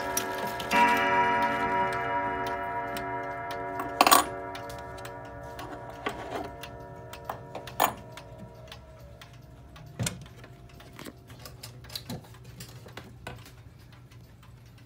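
Girod wall clock's chime rods ringing and slowly dying away, with one more hammer strike about a second in, over the steady ticking of the pendulum movement. A few sharper clicks come through as the ringing fades.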